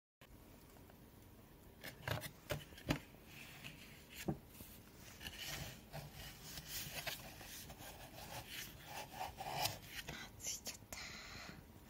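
White paperboard cake box being handled on a wooden table: cardboard flaps rubbing and scraping, with several sharp clicks and knocks.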